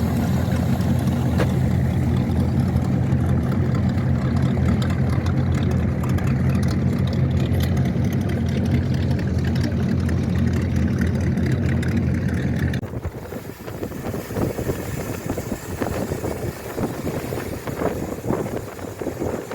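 Motorboat engine running steadily with a low, even tone. About thirteen seconds in it cuts off abruptly, leaving quieter wind on the microphone and water noise.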